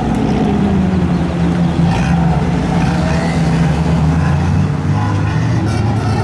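Lamborghini Gallardo's V10 engine running steadily at low revs as the car rolls slowly past, a deep, even exhaust note with no hard revving.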